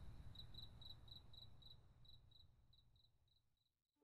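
Faint cricket chirping, about three to four even chirps a second, over a low background rumble, fading out to silence near the end.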